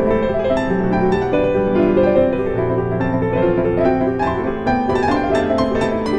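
Background music: gentle piano playing a flowing melody over sustained chords.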